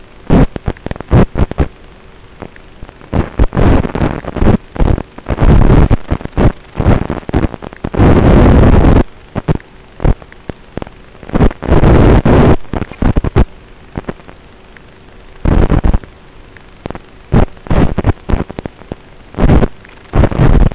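Loud, irregular bursts of static crackling in and out over a steady hiss, from the audio channel of an analog FPV video link as the signal from the racing drone breaks up.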